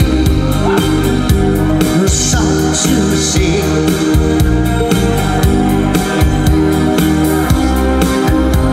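Live band music played on electronic keyboards, with a steady drum beat and sustained chords in an instrumental passage without singing.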